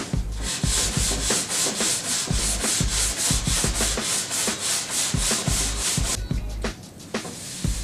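A handheld brush scrubbing rapidly back and forth over a snowboard's waxed base, about four strokes a second, to work the wax in and smooth the base after scraping. It pauses briefly about six seconds in, then starts again.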